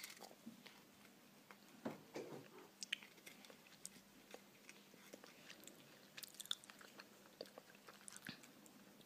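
A cat chewing and biting a crumbly treat, faint crunching with scattered small clicks and crackles, a little louder about two seconds in.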